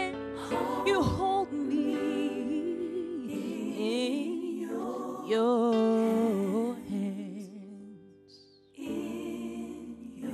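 A woman singing a slow gospel ballad into a microphone, with held notes that waver in vibrato, over sustained instrumental chords. The music drops away briefly near the end and then comes back in.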